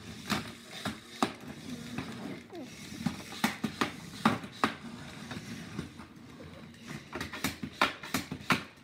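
Irregular sharp plastic clicks and clacks from HEXBUG BattleBots toy robots and their handheld remote controllers, coming in quick clusters around the middle and again near the end.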